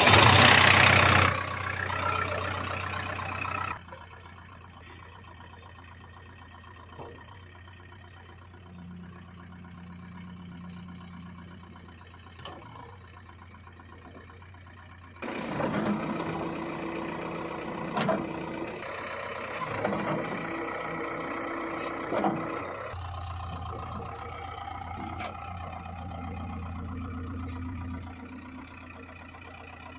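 Vehicle engine sounds in separate stretches, starting with a loud hiss. A louder passage in the middle carries a few knocks, and it ends in a steady low engine hum.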